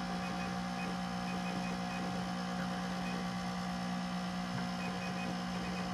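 Macintosh SE's cooling fan running with a loud, steady hum, a fan noise the owner believes is abnormal for the machine.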